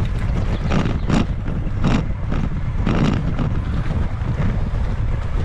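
Wind buffeting the microphone of a mountain biker's camera while riding, a steady low rumble, with a few short rushing or scraping sounds about a second apart from the bike on the trail.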